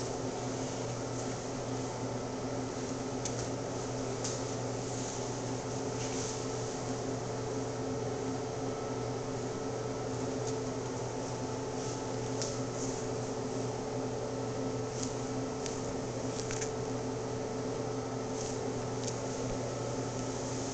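Steady mechanical hum holding several even tones, with a few faint ticks scattered through it.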